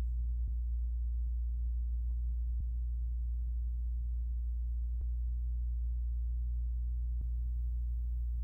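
Steady low electrical hum with a few faint ticks.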